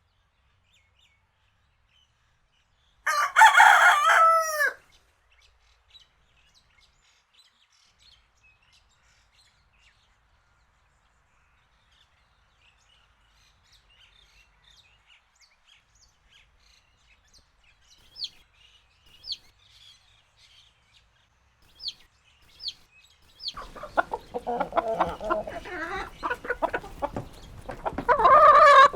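A rooster crows once, loud and just under two seconds long, a few seconds in. Faint short bird chirps follow, and from about three-quarters of the way through, chickens cluck busily, louder near the end.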